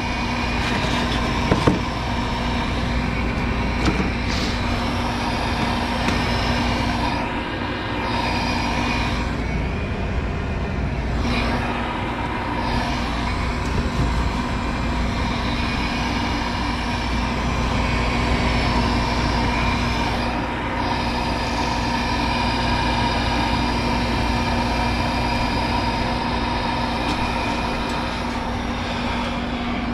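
Lennox condensing gas furnace running: a steady mechanical hum with a constant low tone that drops out briefly about ten seconds in. A couple of light knocks in the first few seconds.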